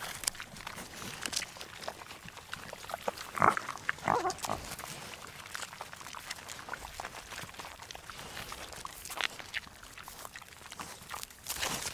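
Long-tailed macaques feeding on dry ground: scattered small clicks and rustles, with two short calls, the loudest sounds, about three and a half seconds in.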